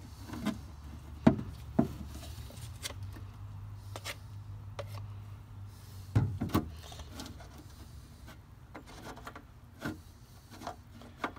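Handling noises from epoxy work in a fibreglass boat hull: scattered knocks and light rubbing as a plastic mixing cup is handled and set down and a stir stick spreads thickened epoxy, the loudest knocks about a second and about six seconds in. A low steady hum runs underneath and fades out about seven seconds in.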